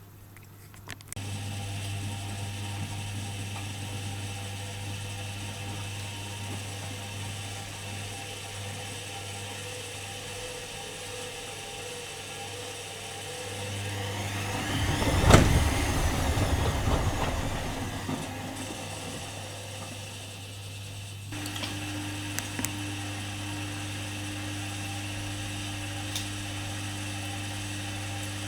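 Privileg Dynamic 4612 washing machine's drum motor starting up about a second in and running with a steady hum. Around the middle it surges louder with a sweeping pitch, then shifts to a new steady tone as the motor changes speed.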